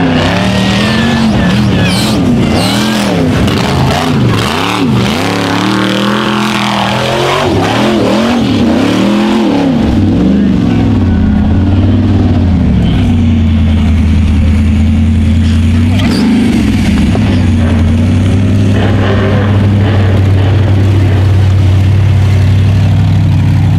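Rock bouncer's engine revving hard up and down over and over as the buggy climbs a steep dirt hill. About halfway through it settles and runs at a steady speed.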